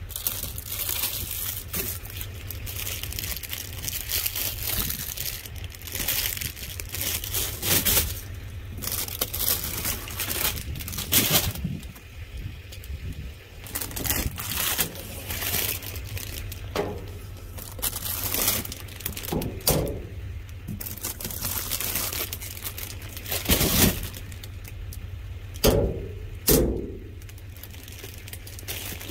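Rubbish being rummaged through in a dumpster: plastic bags and cardboard boxes crinkling and rustling as they are shoved about, with irregular cracks and knocks. A steady low hum runs underneath.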